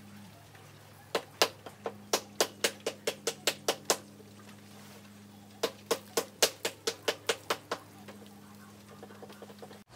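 Two runs of quick, sharp knocks, about four a second and each lasting two to three seconds, over a steady low hum.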